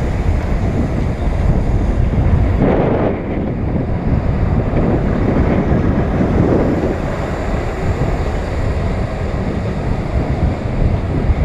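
Wind buffeting the microphone of a GoPro on a moving bicycle: a loud, steady low rumble that swells briefly about two and a half seconds in and again around five to seven seconds in.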